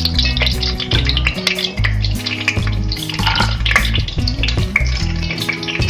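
Background music with a steady bass line, over hot oil sizzling in a pot as fried almonds and coconut pieces are scooped out with a plastic slotted spoon.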